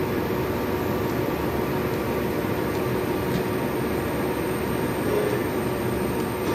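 Steady machinery running, an even mechanical noise with a faint steady hum underneath.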